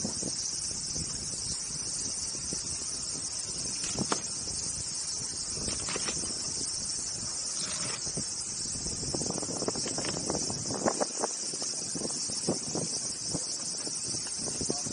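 Steady high-pitched insect chorus, with a kitchen knife cutting through a cabbage head. The cuts are a few scattered crisp clicks at first, then come quickly in a run in the second half.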